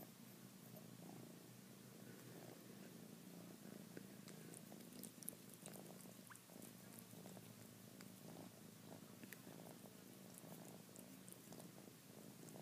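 Faint, steady purring from a domestic cat while it eats, with soft, scattered clicks of licking at food.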